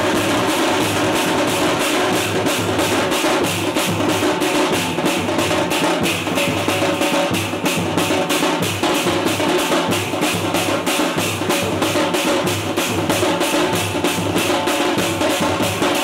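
Teenmaar band drums: several large strap-hung drums struck with thin sticks, playing a fast, steady beat together with a low pulse about twice a second.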